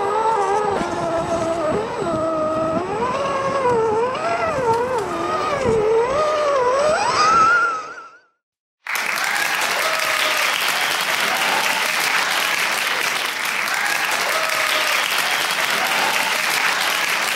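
Electric motor whine of a radio-controlled crawler truck, rising and falling in pitch with the throttle, fading out about eight seconds in. After a moment of silence, steady applause starts and carries on.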